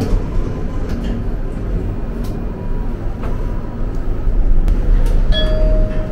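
Passenger lift travelling, a steady low rumble with a few faint clicks, then a single steady beep just under a second long near the end.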